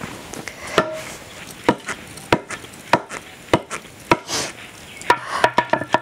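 A steady series of sharp knocks, one every half second to a second, about six in all. Near the end comes a faster run of clicks with a few ringing tones.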